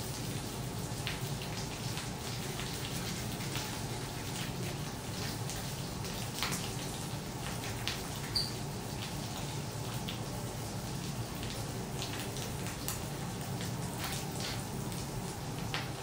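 Food sizzling in oil on a steel teppanyaki griddle: a steady frying hiss with frequent small pops and spits, over a steady low hum.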